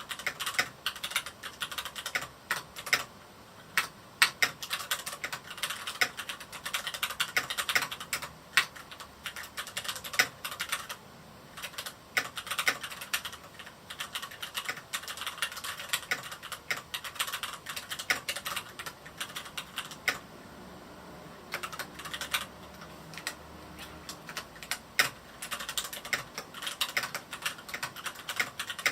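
Typing on a Varmilo Miya68 mechanical keyboard with Cherry MX Red linear switches: a fast, irregular run of keystroke clacks with a few brief pauses.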